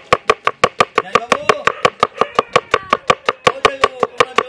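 Large kitchen knife rapidly slicing a red onion on a wooden chopping board, the blade striking the board in a steady, fast rhythm of about six strokes a second.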